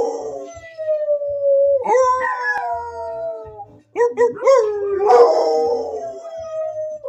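Two dogs howling together: long howls that slide slowly down in pitch, overlapping. About four seconds in the howling breaks off briefly, then comes back with a few short wavering notes and another long howl.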